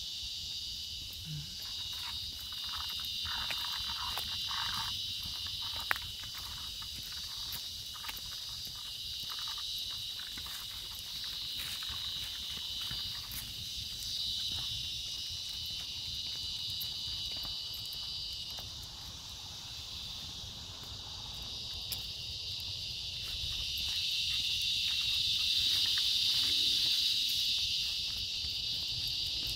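A steady, high chorus of evening insects such as crickets, growing louder near the end, with scattered light clicks from footsteps and handling.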